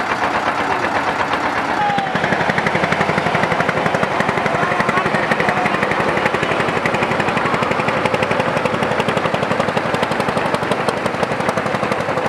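A boat engine running steadily with a rapid, even chugging knock, getting a little louder about two seconds in.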